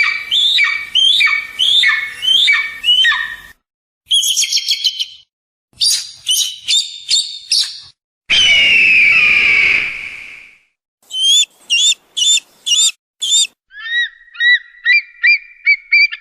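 Kite calls spliced together in short clips with brief gaps: series of shrill falling whistled notes, quick trilled runs, and one long drawn-out falling whistle about halfway through.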